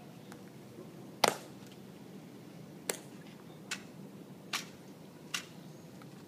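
Tomb guard's metal-tapped heels clicking on the stone plaza: one sharp click about a second in, then four lighter, evenly spaced steps.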